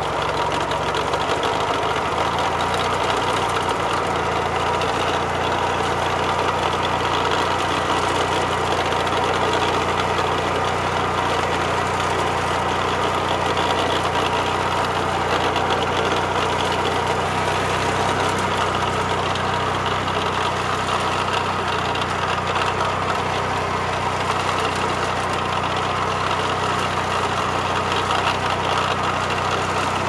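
Lawnmower engine running steadily at a constant speed, with no revving.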